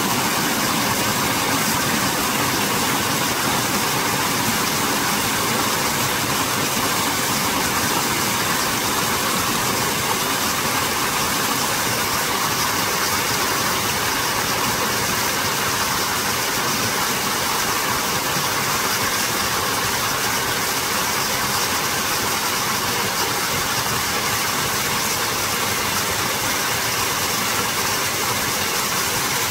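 Mountain stream rushing: a steady, unchanging wash of water noise.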